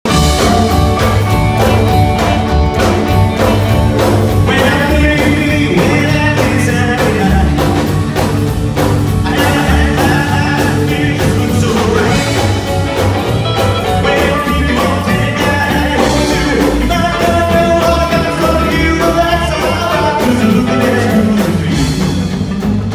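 Live rockabilly band playing upright bass, drum kit, electric guitar and piano with a steady beat.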